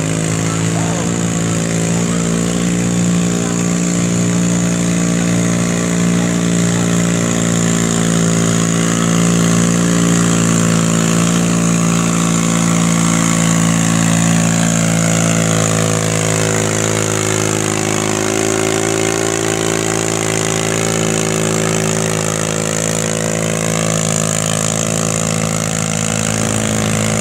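Garden tractor engine running loud and steady at a constant pitch under load as it pulls a weight-transfer sled down a dirt pulling track.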